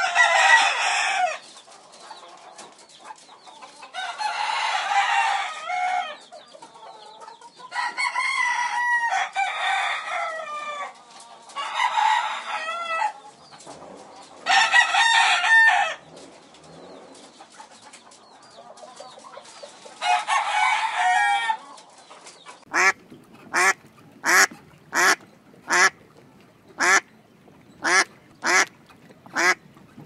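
Rooster crowing again and again, a long crow every few seconds. Near the end this gives way to mallard ducks quacking in a quick run of short calls, about one every 0.7 seconds.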